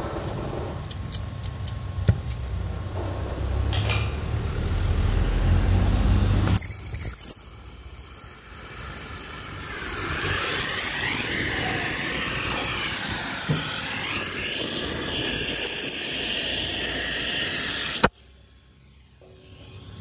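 A low rumble for the first six seconds, then, from about ten seconds in, the steady hiss of an oxy-fuel cutting torch cutting a steel beam, which stops abruptly near the end.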